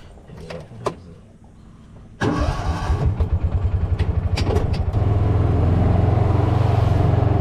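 Kawasaki side-by-side UTV's engine starting about two seconds in, after a couple of faint clicks. It catches suddenly, runs unevenly for a few seconds, then settles into a steady idle.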